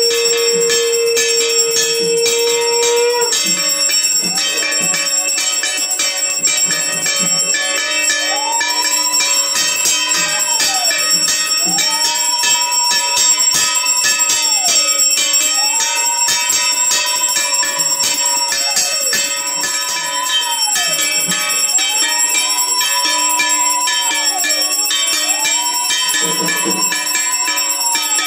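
Bells and clashing metal percussion ringing continuously. A steady tone holds for the first few seconds, and from about eight seconds in a long tone rises, holds and falls, repeating about every three seconds.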